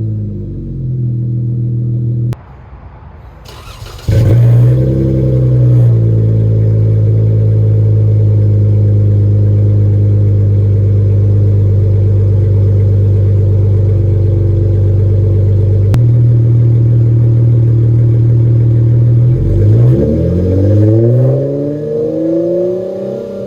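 2011 Dodge Charger's 3.6L Pentastar V6 through a Flowmaster Super 44 muffler with the rear mufflers deleted, a loud, straight-piped exhaust note. It winds down, then revs up a few seconds in and holds a steady high speed for about fifteen seconds, then drops and rises and falls again near the end.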